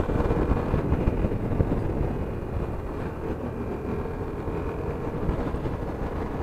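Yamaha motorcycle's engine running while riding in traffic, under steady wind and road noise.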